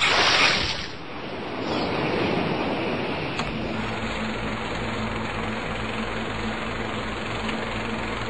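A rush of noise like a breaking wave that fades within the first second, then a steady low mechanical hum with a buzzing edge from about three and a half seconds in.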